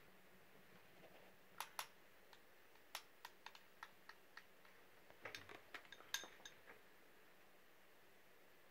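Metal spoon clicking and clinking against a small glass bowl while baby food is scooped up: about fifteen short, light clicks, some in quick clusters, between otherwise quiet stretches.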